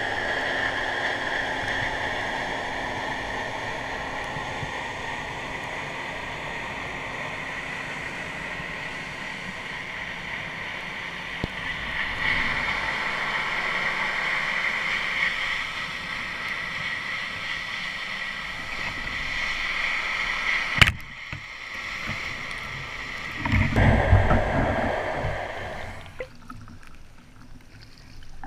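Underwater sound through a camera housing: a steady hiss and hum with faint steady high whining tones. About 21 seconds in comes a sharp click, then a few seconds later a loud burst of low rumbling water noise, after which it goes quieter.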